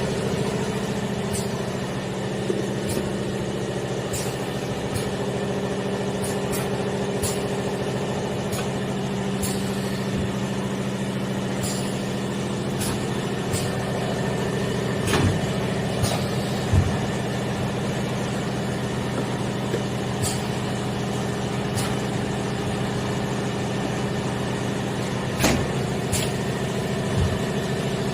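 Lead-acid battery intercell welding machine running with a steady hum, and sharp clicks every second or two; a few louder knocks come in the second half.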